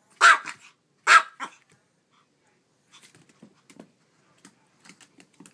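A Papillon barks twice, short and sharp, about a second apart. Faint light clicks and taps follow from about halfway through.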